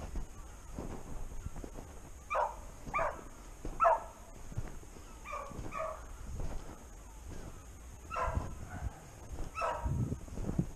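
Hunting beagle baying on a hare hunt, about seven short bays in groups of two or three: a scent hound giving tongue on the hare's track.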